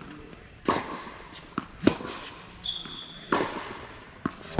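Tennis rally on an indoor hard court: a tennis ball struck by rackets and bouncing, about five sharp pops spaced a second or so apart. A short high squeak, typical of a sneaker on the court, comes just before one of the hits.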